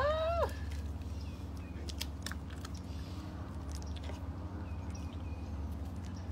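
A Great Dane chewing a treat, a few scattered crunchy clicks over a steady low background hum. A short high call rises and falls in the first half second.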